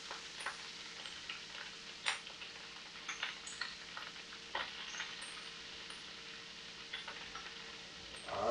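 Hot fat (bacon renderings with a little ghee) sizzling in a pan at smoke point, a steady hiss broken by scattered sharp pops and crackles. A faint steady hum runs underneath.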